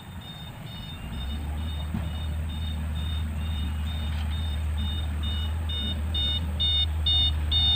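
Dump truck reversing: its back-up alarm beeps about twice a second, getting louder as it comes closer, over the steady low drone of its engine, which picks up about a second in.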